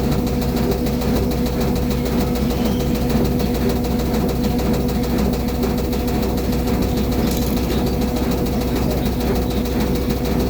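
LG front-load washing machine on its spin cycle: a steady mechanical hum with a fast, even rhythm and no knocking or banging, the sign that the machine is running stable.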